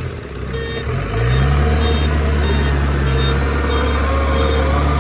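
JCB 3DX backhoe loader's diesel engine revving up about a second in, then running steady and loud. A high beep repeats about twice a second over it.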